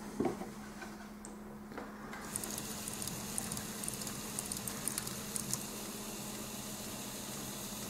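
A couple of light clicks, then the small electric motor and gear train of a Meccano crawler tractor model start running about two seconds in: a faint steady whirr with light irregular ticking from the turning clutch and meshing Meccano parts.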